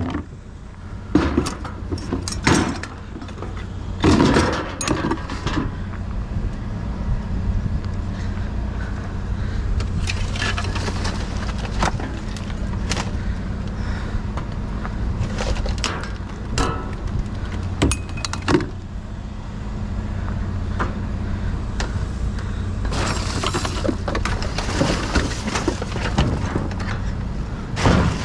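Small scrap-metal pieces in a bucket of brass clinking and clattering as they are handled and shaken, in irregular clanks with a denser stretch of rattling near the end. Under it runs a steady low engine hum.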